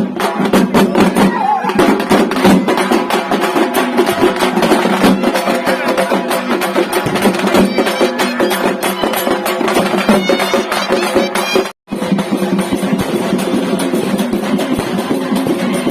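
Loud traditional Indian festival music: rapid drumming with a wind instrument holding a steady melody line over it. It breaks off for a moment about twelve seconds in, then carries on.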